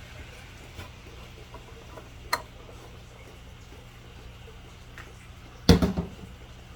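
Light handling clicks over a steady low hum, with a sharp click about two seconds in and a brief loud clatter of several quick knocks near the end.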